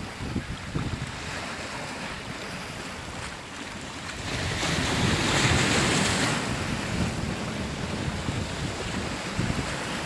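Sea waves breaking and washing among boulders on a rocky shore, one wave surging louder about halfway through. Wind buffets the microphone throughout.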